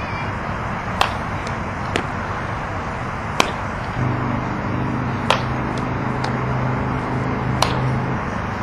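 Several sharp, irregularly spaced cracks of a softball striking a bat or glove during infield practice, about five loud ones, over steady outdoor noise. A low steady hum comes in about four seconds in and stops shortly before the end.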